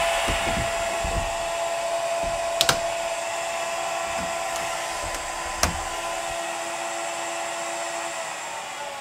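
CNC router spindle running at 24,000 RPM with a steady whine, gradually muffled as the polycarbonate enclosure door is fitted back on, with a few knocks from the panel going into place. The whine fades out near the end.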